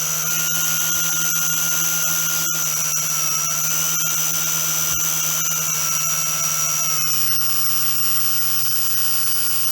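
Drone's electric motors and propellers running up while it is held on the ground, a steady high whine that eases slightly in pitch about seven seconds in. A single sharp click about two and a half seconds in.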